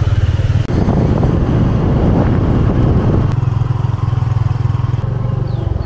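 Motorcycle taxi's small engine running steadily while riding, heard from the pillion seat, with a rougher rushing noise for a couple of seconds starting about a second in.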